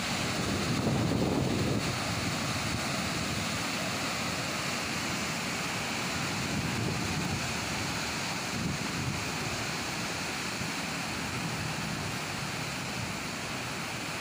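Floodwater rushing through the open sluice gates of a river barrage: a steady roar of churning water, with wind buffeting the microphone.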